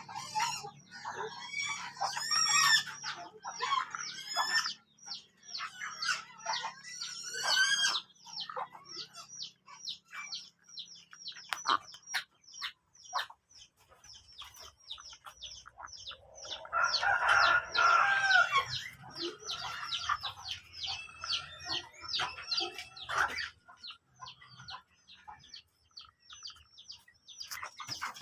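A flock of broiler chickens calling: many short, high peeps and clucks, thick and fast in the first few seconds, thinning to quick chirps, with a louder cluster of calls about seventeen seconds in before they die down.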